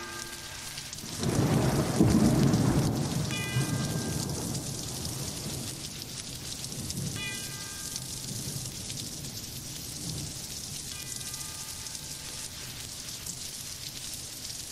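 Thunderstorm: steady rain with a rolling clap of thunder about a second in, the loudest part, fading over the next couple of seconds. A short, high ringing note recurs about every four seconds over the rain.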